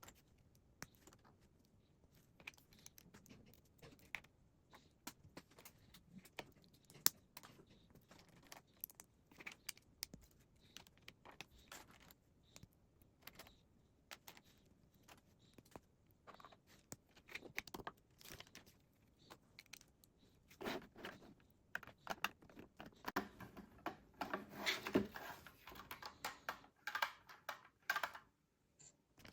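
Plastic Lego pieces clicking and rattling as a set is built by hand: scattered sharp clicks, with a busier stretch of clattering from about twenty seconds in until shortly before the end.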